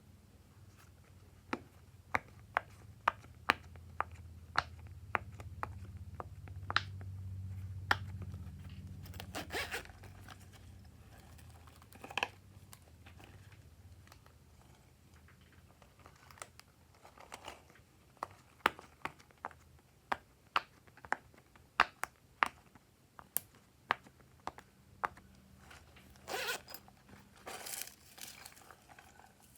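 Glossy slime being squeezed and poked by hand, giving sharp clicking pops at irregular intervals. A few longer crackling, tearing sounds come near the end, and a low hum rises and falls in the first third.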